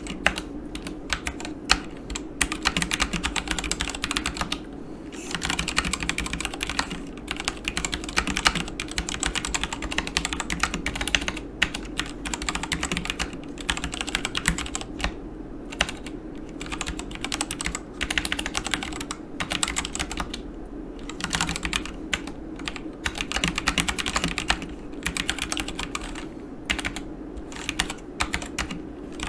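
Typing on a Yunzii KC84 mechanical keyboard with Gateron Black linear switches and PBT keycaps: quick, continuous keystroke clacks in runs, with short pauses between them.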